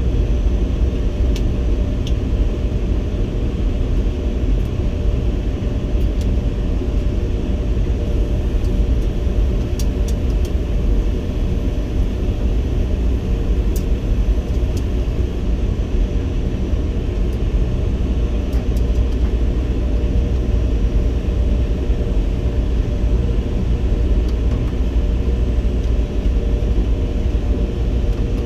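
Speed Queen STT30N stack tumble dryer running: a steady, loud rumble with a constant hum from the drum and blower fan, and a few faint ticks.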